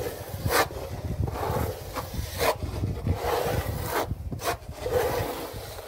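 Plastering work on a wall: irregular rubbing and scraping strokes with a few sharper scrapes, over a low rumble.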